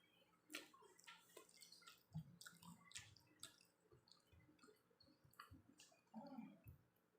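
Faint close-up eating sounds of French fries being chewed: scattered small wet clicks and smacks of the mouth, with a few low, muffled bumps.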